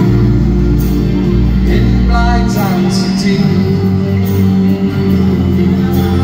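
Live band music: an acoustic guitar over a steady bass line, with a voice singing briefly near the middle.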